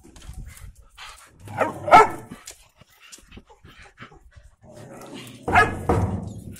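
Dogs barking in two loud bouts, one about two seconds in and one near the end, with fainter short yaps and scuffles between.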